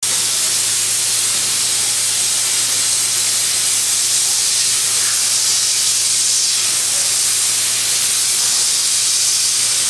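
CNC plasma torch cutting steel plate: the arc and its gas jet give a loud, steady hiss, with a steady low hum underneath.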